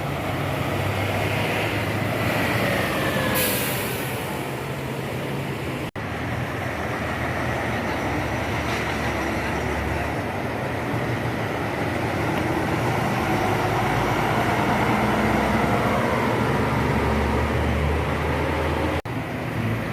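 Large diesel tour buses running and manoeuvring, their engine note sliding down and up as they pull in and out, with a short hiss about three seconds in.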